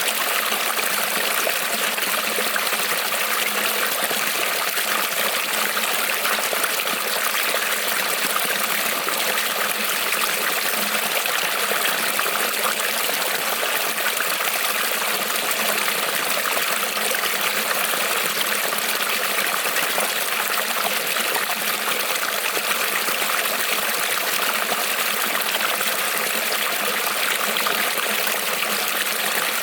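Small creek rippling and trickling over stones, a steady, even burble of running water with no change throughout.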